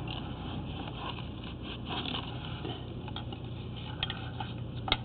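Steady low electrical hum under a background hiss, with a couple of short sharp clicks near the end.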